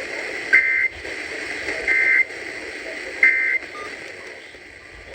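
Emergency Alert System SAME data tones from a radio receiver: three short two-tone digital bursts about a second apart, over steady radio hiss. Their shortness marks them as the end-of-message code that closes the flash flood warning broadcast.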